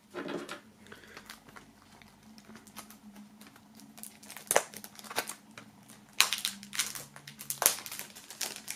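Thin plastic shrink-wrap film crinkling and crackling as it is peeled off a CD jewel case. There are a few sharper crackles in the second half.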